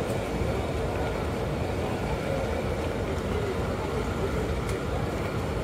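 Bus engine idling steadily, with faint voices of people in the background and a couple of short clicks.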